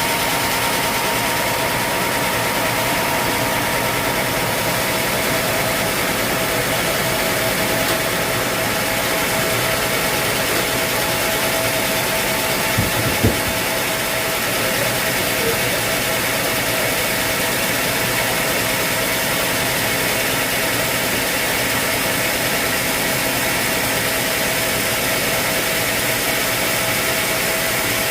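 Sawmill machinery's engine running steadily, with two short knocks about 13 seconds in.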